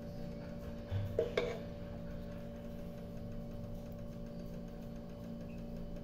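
Light clinks of a plate being handled, twice, about a second in, over a steady low hum.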